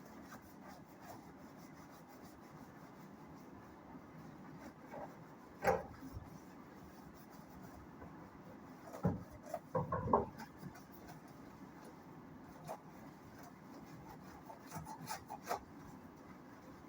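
Rubbing and scrubbing during cleaning, with a few sharp knocks and clatters about six seconds in, a cluster around nine to ten seconds, and a few more near the end.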